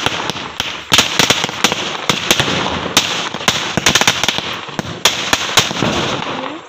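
A saravedi, a long chain of small firecrackers, going off in a rapid, irregular string of loud bangs and crackles that stops right at the end.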